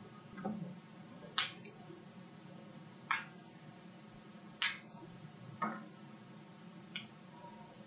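About six short, sharp clicks, a second or more apart and irregularly spaced, over a faint steady room hum.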